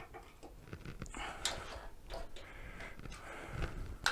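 Scattered light clicks and knocks of metal parts being handled as a mobility scooter's tiller is lined up and bolted onto the steering mast, with a sharper click near the end.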